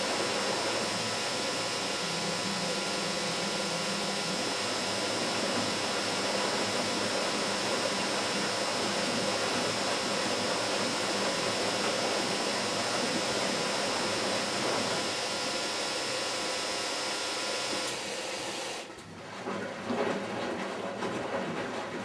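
Miele Automatic 416 front-loading washing machine running with a steady hissing noise and a thin high tone, which cuts off suddenly near the end. Scattered clicks and knocks follow.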